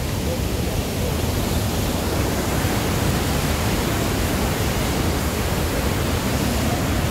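Waterfall rushing steadily down a narrow rock gorge, a constant roar of falling water that grows fuller about a second in.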